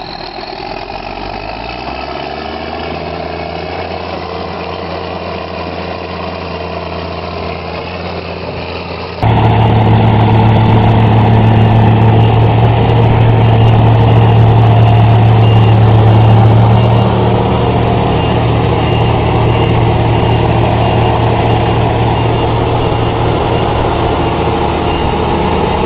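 Heavy machinery engines running. The first rises in pitch as it revs up over the first couple of seconds, then holds steady. About nine seconds in it cuts to a louder engine running at a steady speed.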